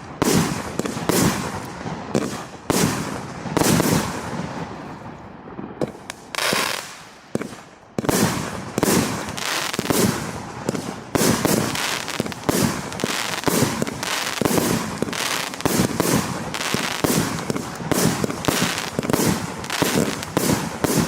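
Wolff 'Instinct' firework going off in a rapid run of shots and bursts, about two a second, with a lull of a couple of seconds about a third of the way in before the steady sequence resumes.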